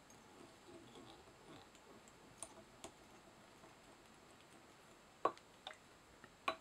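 Faint rustling of fingers working craft fur at a fly-tying vise, with a few short clicks of small tools being handled; the sharpest clicks come late, the loudest just past five seconds in and another at the end.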